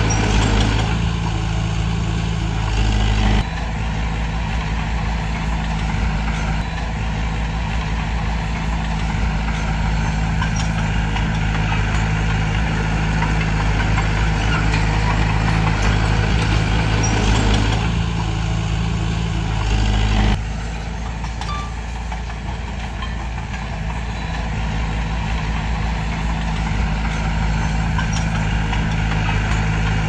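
Diesel engine of heavy earthmoving machinery running steadily, its hum shifting abruptly about three seconds in and again around eighteen and twenty seconds in.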